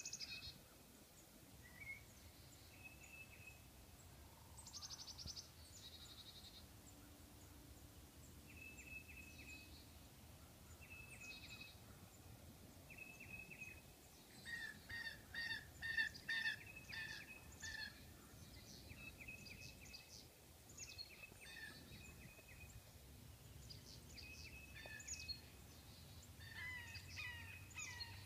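Faint songbirds calling: scattered short chirps and trills, coming thickest for a few seconds in the middle, over a faint low steady rumble.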